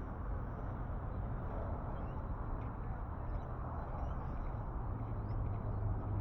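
Steady outdoor background noise with a low rumble, a few faint high chirps, and a low engine hum that builds near the end.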